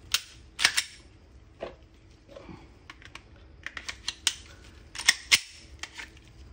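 Glock 43 pistol being worked by hand: a string of irregular sharp clicks and clacks of its polymer frame and steel slide knocking and snapping together, two of the loudest close together about five seconds in.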